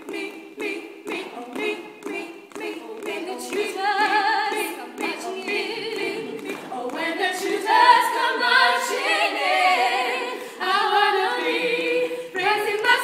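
Female trio singing a cappella in close barbershop harmony, 1940s style. Short, clipped notes for the first few seconds, then longer held chords.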